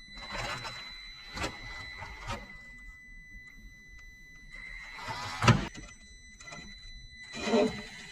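Mini RC scale crawler driving over a hard plastic obstacle: a steady high whine from its small electric drive, broken by several knocks and clatters of the tyres and chassis on the plastic, the loudest about five and a half seconds in.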